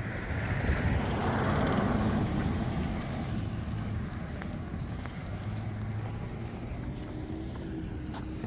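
A car passing on the street: its tyre and engine noise swells over the first second or so and fades away by about three seconds in, over a steady low traffic rumble.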